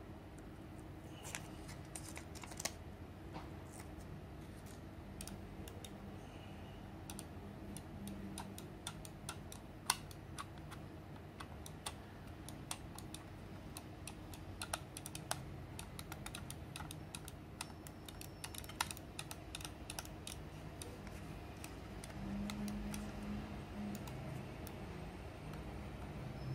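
Fingertips and nails pressing and smoothing textured grip tape onto the plastic shell of a Razer Viper Mini gaming mouse: irregular small clicks and crackles, with one sharper click about ten seconds in.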